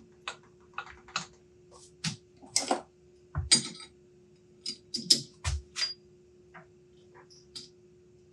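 Irregular clicks, knocks and clinks of steel parts and tools being handled at a metal lathe, a few ringing briefly, over a faint steady hum.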